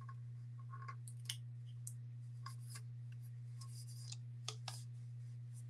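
Scattered small clicks, snips and scratches of heat-resistant tape and sublimation paper being handled as the paper is wrapped tight around a tumbler, over a steady low hum.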